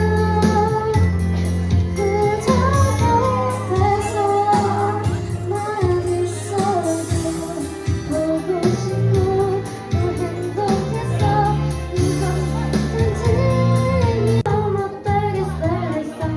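Students singing a Korean pop song live over a recorded backing track with a steady bass line.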